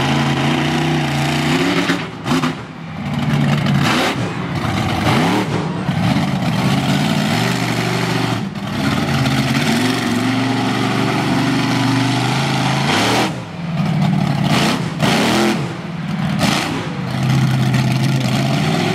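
Monster truck's engine revving up and down again and again as the truck drives, the pitch climbing and falling with each throttle blip, with brief lulls where the throttle closes.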